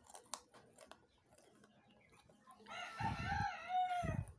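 A rooster crows once, one pitched call of about a second and a half that bends up and down and ends on a long, slightly falling note, near the end. Before it come a few faint crunches of a soda cracker being bitten.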